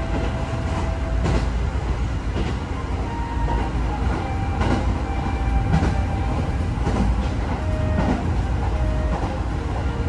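A train running at speed, heard from inside the carriage: a steady low rumble with occasional sharp clicks of the wheels over the rails.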